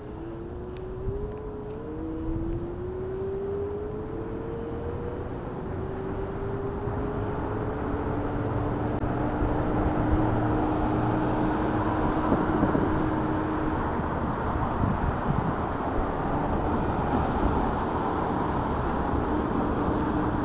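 Electric scooter's motor whining, rising in pitch as it speeds up over the first few seconds and then holding a steady tone while cruising, with wind and road noise growing with the speed.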